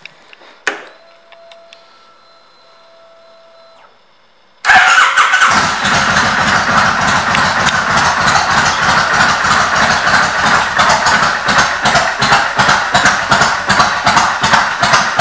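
A 2001 Kawasaki Vulcan 1500 Nomad's V-twin is switched on with a click and a faint electric whine. About four and a half seconds in, the engine starts suddenly and settles into a loud, even idle through its Vance & Hines exhaust.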